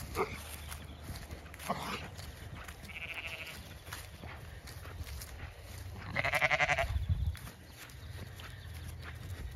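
Zwartbles ewes bleating: a short, higher, wavering bleat about three seconds in, then a louder, longer, quavering bleat around six seconds. A low rumble runs underneath.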